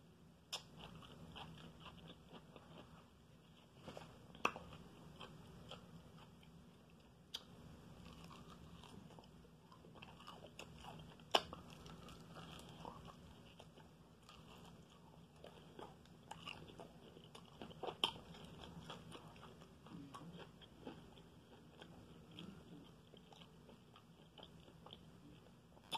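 A person biting into and chewing crispy fried chicken wings: faint crunching and chewing, with a few sharper crunching clicks now and then, the loudest about halfway through.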